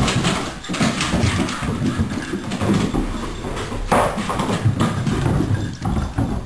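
Two puppies running and scrabbling across a wooden floor, their paws and claws clattering in quick, irregular knocks.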